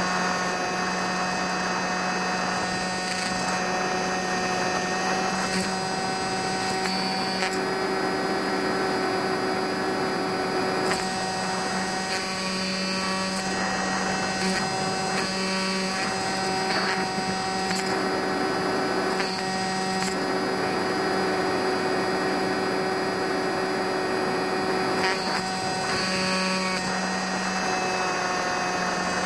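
Brushless electric motor and propeller of an RC foam model plane running at cruise throttle: a steady buzzing drone over rushing air noise, its pitch shifting slightly now and then.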